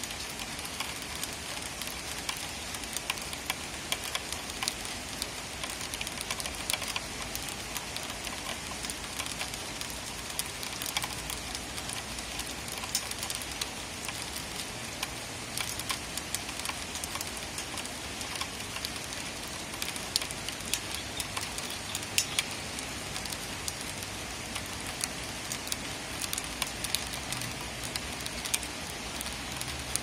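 Rain falling steadily: an even hiss with many small, sharp drop taps scattered through it.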